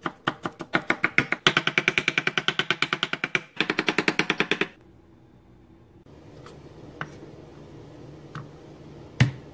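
Chef's knife rapidly mincing ginger on a wooden cutting board, about nine or ten chops a second with a short break, stopping a little under five seconds in. A few light taps and a knock follow near the end.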